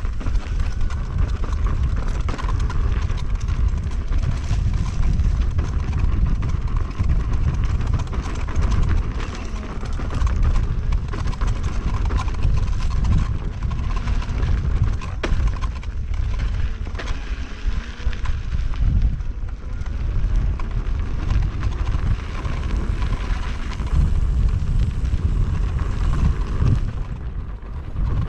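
KingSong S22 electric unicycle ridden along a rough dirt trail: a steady rumble of wind and ride noise on the rider-mounted microphone, with scattered knocks and rattles from the bumps.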